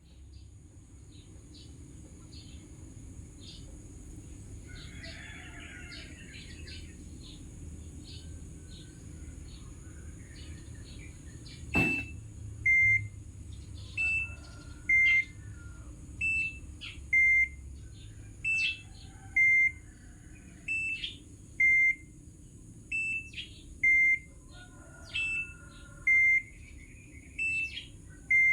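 Automatic washing machine with a low steady hum, then a sharp click about 12 seconds in, after which it beeps repeatedly, alternating between a higher and a lower tone about once a second. Faint bird chirps in the background.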